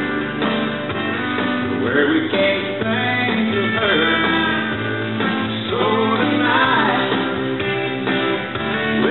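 Country music recording with guitar, playing steadily.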